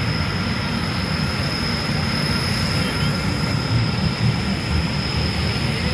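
Aircraft engine running steadily and loudly: a low rumble with a constant high whine.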